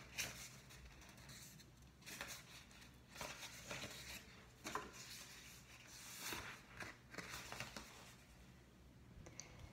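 Faint rustling and creasing of a paper hand cutout as its fingers are lightly folded along the joint lines, in short, irregular bursts.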